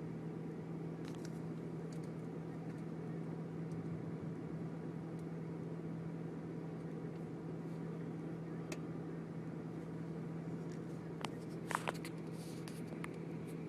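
Steady vehicle cabin noise: a low rumble with a constant hum underneath, and a few sharp clicks near the end.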